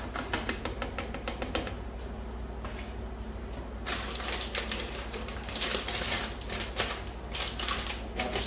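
Pan of tomato-and-shrimp soup simmering, with rapid crackling and popping. It starts as scattered clicks, quiets for a moment, then turns dense and busy about four seconds in. A steady low hum runs underneath.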